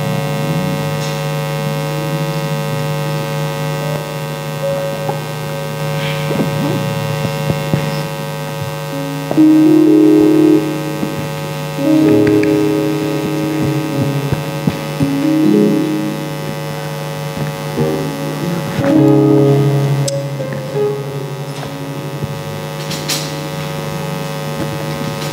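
Steady electrical mains hum through a sound system, with a few short held musical notes sounding in the middle stretch.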